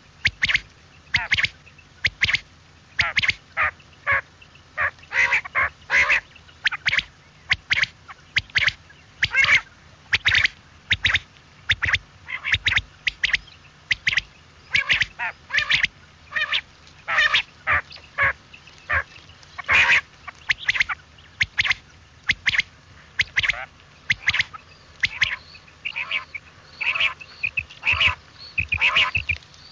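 Quail calling: a fast, uneven series of short, sharp notes, about two a second.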